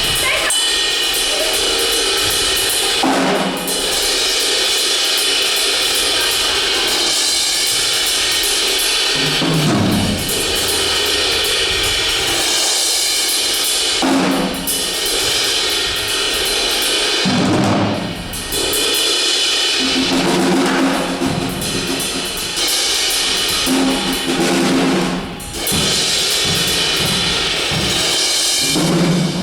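Live drum kit playing loudly: a continuous cymbal wash over low drum strokes and fills that come back every few seconds.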